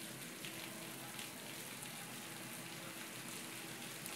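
Water pouring into a large tip bucket as it fills, a steady splashing hiss like rain.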